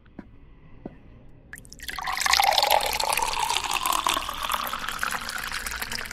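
Water poured from a pitcher into a glass, starting about two seconds in, the pitch of the pour rising slightly as the glass fills. It is preceded by a few light taps.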